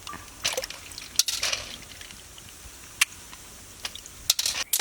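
Scissors snipping the hard tail tips off field snail shells: several sharp clicks spread over a few seconds, with softer rustling of wet snails between them.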